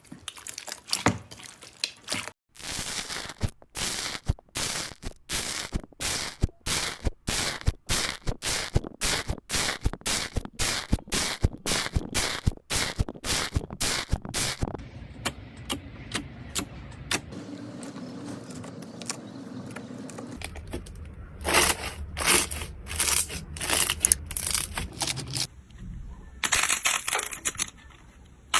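Slime being squeezed and pressed by hand, giving crisp crackling pops in a fast run of about three a second. About halfway through it turns to a softer squishing, and sharp crackles come back near the end.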